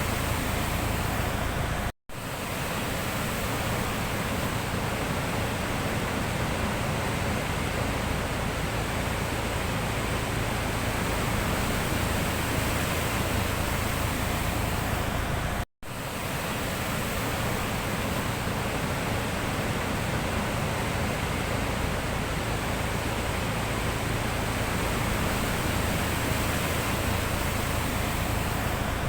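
Sea surf making a steady, even wash of noise, cutting out for an instant about two seconds in and again about halfway through.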